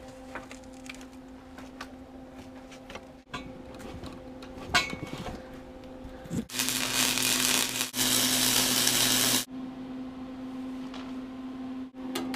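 Metalworking on steel stair parts: light taps and handling clicks over a steady low hum, then about three seconds of a loud power tool running on the steel, cut in two, from about six and a half seconds in.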